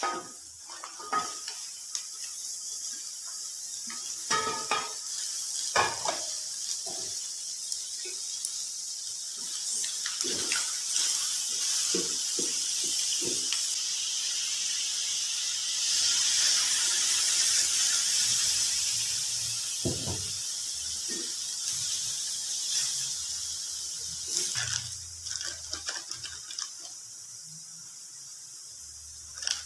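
Chopped vegetables sizzling in a hot metal wok: a steady frying hiss that swells to its loudest around the middle and then eases off. A wooden spatula scrapes and knocks against the wok at intervals as the vegetables are stirred.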